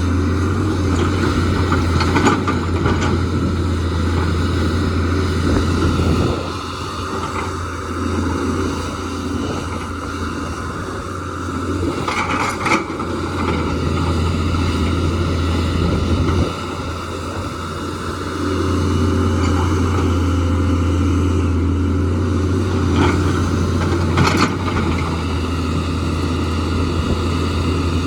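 JCB excavator's diesel engine running steadily under working load. Its level drops for about ten seconds in the middle, then picks up again, with a few sharp knocks along the way.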